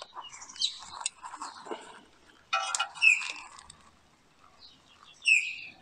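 Short bird calls, several times, the loudest about halfway through and near the end, over light clinks and handling of a spanner on a rear brake caliper.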